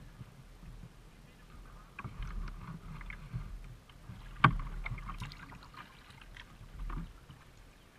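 Kayak paddling: a paddle dipping and splashing with water dripping, in uneven strokes, and a single sharp knock about halfway through.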